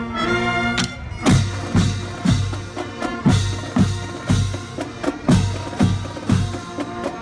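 Marching band in a parade: the brass holds its last notes for about a second, then the drum line takes over with a steady cadence, marching bass drums thumping about twice a second with snare strokes between.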